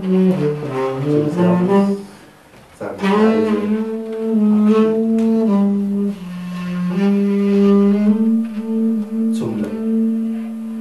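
Tenor saxophone played slowly in its low register: a few moving notes, a brief pause about two seconds in, then long held low notes that change pitch only a few times.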